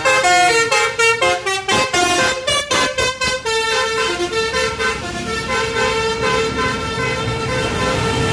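Bus telolet horn, a multi-tone air horn, playing a melody of short stepped notes. From about three and a half seconds in it holds longer notes.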